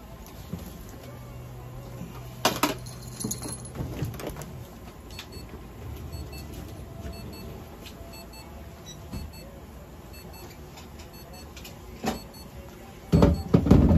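An electronic device beeping faintly, a short high double beep about once a second, starting about five seconds in, over a quiet room background with a few soft knocks from handling. Near the end come louder low thumps.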